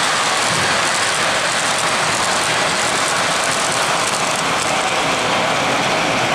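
Three-rail O-gauge model train (a Weaver GE U25B diesel pulling tank cars) running on the layout track: a steady rumble of wheels on rail, mixed with shopping-mall background noise.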